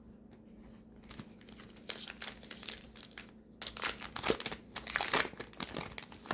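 A 2025 Topps Allen & Ginter trading card pack wrapper being torn open and crinkled by hand, crackling in quick runs from about two seconds in.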